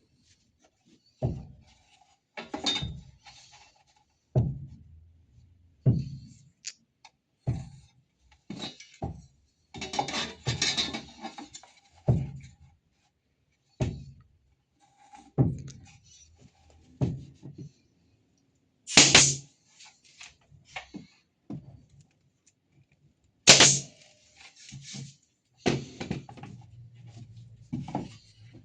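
Irregular knocks and thunks of wooden workpieces being handled, about one every one to two seconds. There is a short stretch of scraping around ten seconds in, and two sharper, brighter clacks later on.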